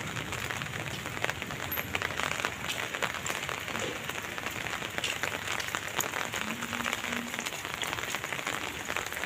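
Steady rain falling, an even patter of many drops on the wet road and surroundings.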